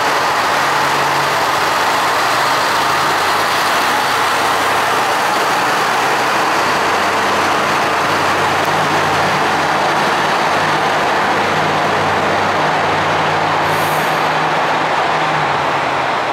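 KiHa 150 diesel railcar pulling away under power, its diesel engine running steadily with a low hum under a loud, even rumble. A short hiss of air sounds near the end.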